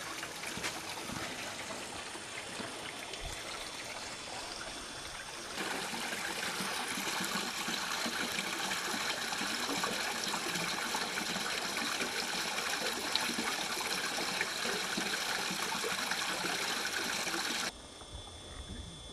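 Water running and trickling steadily. It gets louder about five seconds in, then drops off sharply to a quieter hiss near the end.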